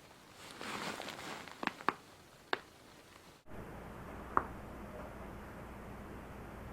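Joint cracking. After a short rustle come two quick sharp pops and a third just after. Then, against a steady low hum, one more single sharp pop.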